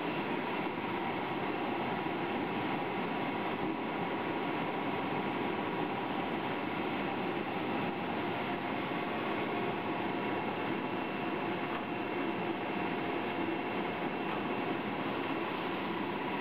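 Hosoda Kogyo 5B five-tank vegetable washing machine running, a steady, unchanging mechanical hum and rush with faint constant tones.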